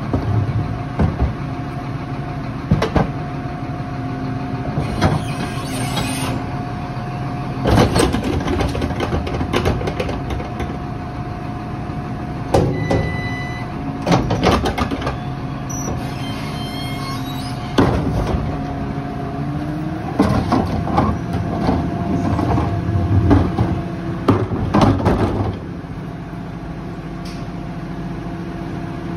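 Split-body Lodal garbage truck running with a steady engine and machine hum, broken by repeated clanks and bangs. About two-thirds of the way through the engine note rises, then it settles at a lower, quieter level.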